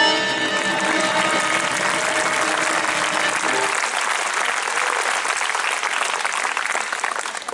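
Audience applauding at the end of a song, with the final chord of piano, accordion and cello ringing under the clapping and dying away about three and a half seconds in. The applause thins out near the end.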